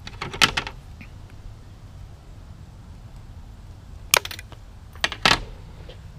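Sharp clicks and taps in three short clusters: one about half a second in, one around four seconds and one around five seconds. They sound like bonsai wire and tools being handled as the wiring is finished.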